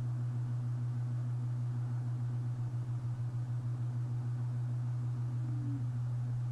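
A steady low hum with a faint, regular pulsing just above it, holding at one level throughout.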